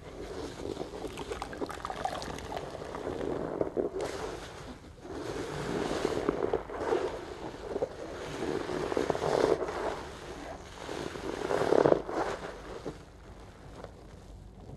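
Large sponge squeezed and plunged by gloved hands in a metal tub of sudsy water: wet squelching and sloshing with foam crackle, in several swells a couple of seconds apart, loudest near the end.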